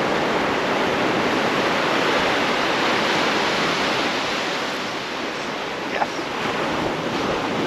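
Steady rush of surf washing onto the beach.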